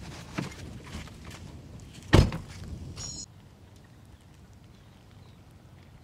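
A few light knocks, then one loud thump about two seconds in, after which only a faint steady hiss remains.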